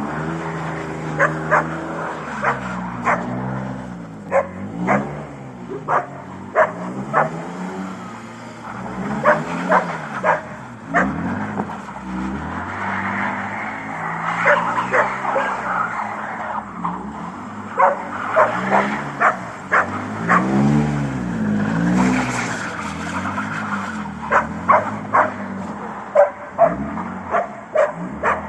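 BMW E46 323i's 2.5-litre inline-six revving up and down again and again as the car spins circles on snow with its differential fully locked. A dog barks sharply many times over the engine, the barks being the loudest sounds.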